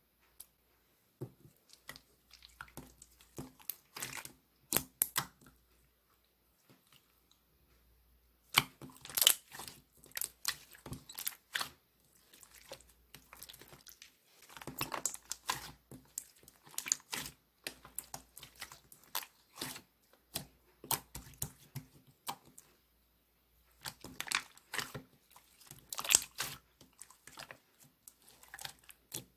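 Slime being squeezed, stretched and pressed by hand, giving wet clicks, pops and crackles in bursts with short pauses between.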